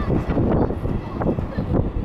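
Battery-powered pier tram running towards the microphone on its rails, under heavy, uneven wind rumble on the microphone.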